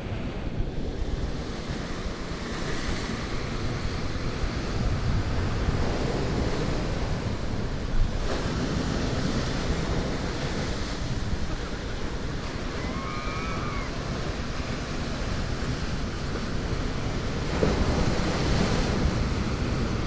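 Ocean surf washing against the rocks below, with wind buffeting the microphone. A single sharp knock about eight seconds in, and a short high call a little past halfway.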